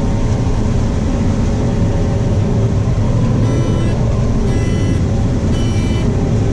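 Combine harvester running steadily while combining corn, heard inside the cab. Three short beeps sound about a second apart in the second half.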